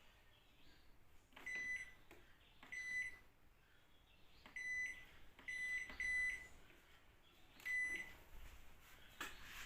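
Hisense washing machine's control panel beeping six times at uneven intervals as its buttons are pressed, each short high beep just after a faint button click. A brief rustle near the end.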